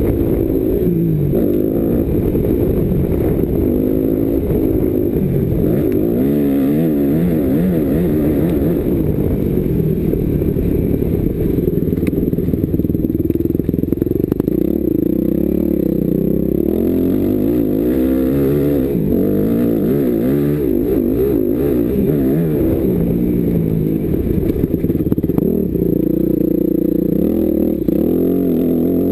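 Yamaha YZ250F four-stroke motocross bike engine revving hard and easing off over and over as the rider accelerates, shifts and brakes around the track, with rattling from the bike over rough ground.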